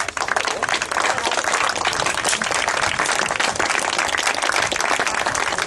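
Crowd of spectators applauding steadily, many hands clapping at once.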